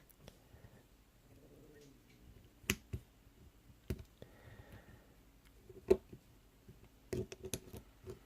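Sharp metal clicks and taps from a pin-tumbler lock being taken apart by hand, as the retaining clip is worked off the back of its plug. About half a dozen separate clicks, the loudest about two-thirds of the way in, with a quick cluster near the end.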